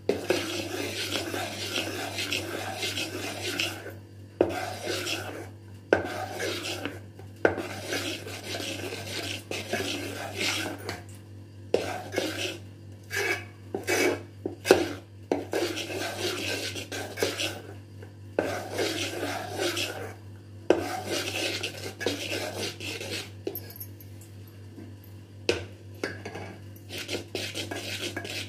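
A metal spoon stirring and scraping thick cake batter in a metal bowl, working flour in so no lumps remain, in irregular strokes with a few sharp knocks of the spoon against the bowl and a short lull near the end. A steady low hum runs underneath.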